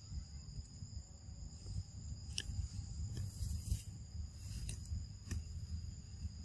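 Insects droning steadily in two high unbroken tones, over a low rumble, with a few sharp clicks and a brief hiss around the middle.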